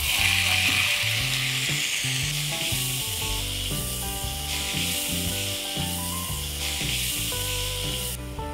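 Chopped tomatoes sizzling as they hit hot oil in a cast iron kadai. The sizzle is loudest right as they go in, holds steady, then cuts off sharply near the end.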